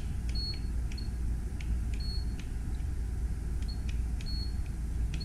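Radio-control transmitter beeping as its trim buttons are pressed: about six short high beeps at irregular intervals, each with a small button click, over a steady low background rumble.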